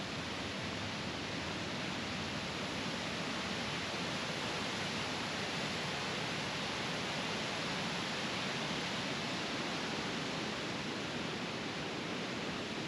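Waterfall: a river rushing in whitewater cascades over granite ledges, a steady, even rushing noise.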